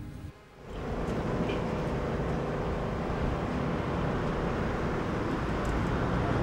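Steady outdoor traffic noise, an even rumble that sets in about a second in after a brief quiet gap.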